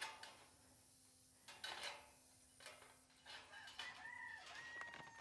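A rooster crowing faintly near the end, one drawn-out call. Before it come a couple of soft brief knocks or rustles.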